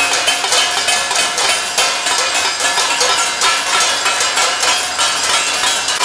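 Steel plate struck rapidly and repeatedly with a metal spoon, a fast, unbroken metallic clanging with a ringing tone, several strikes a second.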